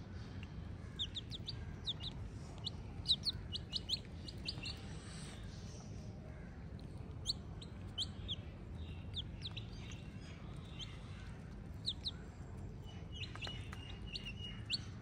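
Domestic chicken chicks a few days old peeping: many short, high cheeps from several birds at once, thickest in the first few seconds and again midway, over a low steady hum.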